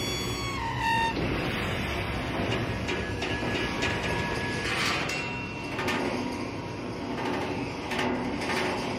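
Steel dumpsters played as instruments: metal scraping and grinding, with a high squealing tone that glides down in the first second. A few brief high held tones and scattered knocks sound over the grinding.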